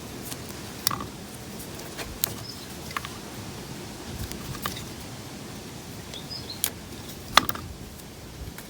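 Scattered sharp clicks and knocks of tools and parts being handled while working on a lawnmower, about seven in all, the loudest a little past seven seconds in.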